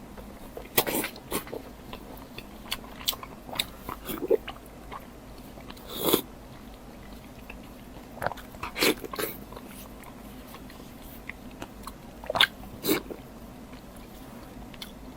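Close-miked eating sounds of a person chewing a large chunk of very tender pork belly: wet smacks and chews in scattered short bursts with quiet gaps between.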